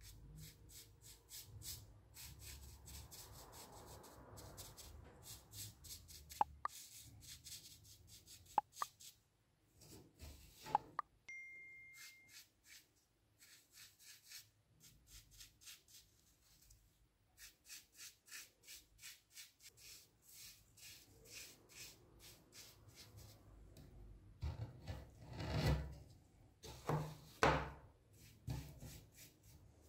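A bristle brush dabbing and scrubbing thick black paste onto a small brass vase: a run of short, evenly repeated brush strokes, about three or four a second. There are a few sharp clicks about a third of the way in, and heavier rubbing with knocks near the end.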